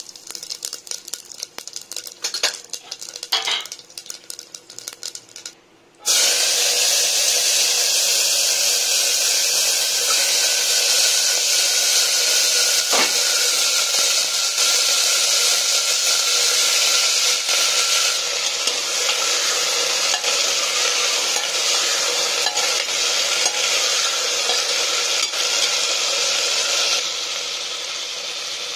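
Hot oil crackling and spitting in short uneven bursts in an aluminium pressure cooker. About six seconds in, a loud steady sizzle takes over as chopped potatoes and green beans fry in the oil, dropping somewhat near the end.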